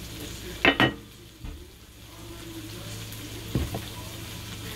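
A kitchen utensil clacking against cookware: two sharp clacks under a second in, a dull knock, then another clack near the end. Under them runs a faint, steady sizzle of food frying in a steel wok.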